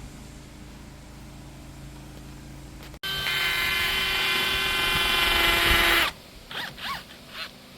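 Power drill running at a steady speed for about three seconds, then stopping abruptly.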